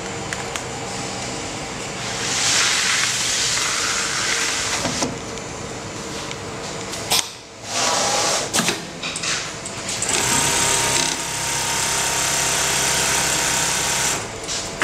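Automatic pattern (template) sewing machine running and stitching, with a louder hissing rush a couple of seconds in and a brief stop-start near the middle before it runs steadily again.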